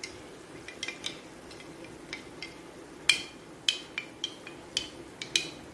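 Spoon stirring cornflour slurry in a cut-glass bowl: a string of short, ringing clinks against the glass at irregular intervals, the loudest about three seconds in, over a faint steady hum.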